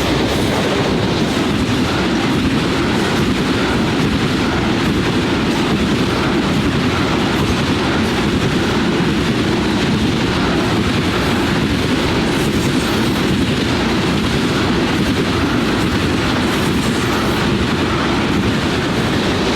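CSX freight train rolling past at steady speed, its steel wheels clicking over the rail joints in a continuous clickety-clack.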